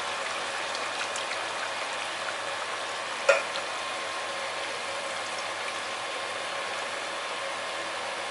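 Chicken in red curry paste and coconut cream simmering steadily in a frying pan as thin coconut milk is poured in, with one sharp clink about three seconds in.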